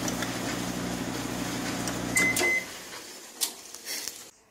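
Frigidaire FFLG3911QW1 gas dryer running with a steady hum, then two short electronic beeps about two seconds in as the motor stops. A couple of knocks follow near the end.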